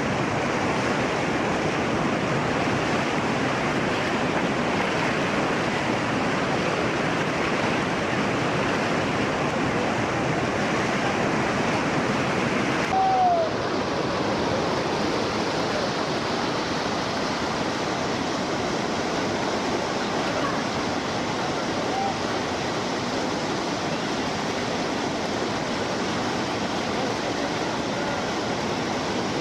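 Steady rushing of water, an even hiss at a constant level. About thirteen seconds in it suddenly turns duller and a single short note falls in pitch.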